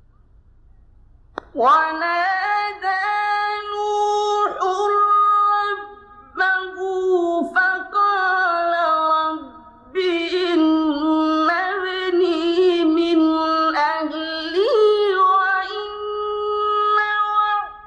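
A male qari reciting the Qur'an in the melodic, drawn-out mujawwad style: after a second and a half of near silence, a high, strong voice holds long ornamented notes that waver and glide, broken by a few short pauses for breath.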